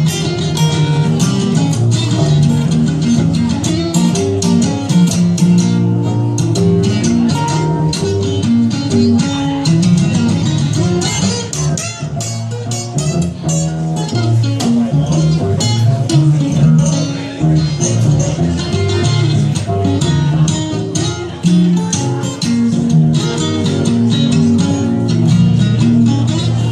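Live acoustic blues band playing an instrumental break: plucked guitar lines over a moving double bass line, with sharp picked attacks throughout.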